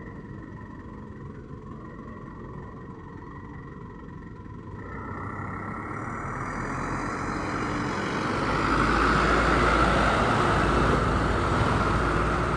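A tour bus approaching and passing close. Its engine and tyre noise swells from about five seconds in to a loud, deep rumble over the last few seconds.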